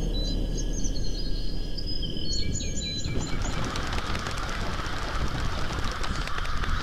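Birds calling with short whistled notes over a low rumble. About three seconds in, a large flock of birds in flight takes over: a dense chatter of many calls and wings, full of fast clicks.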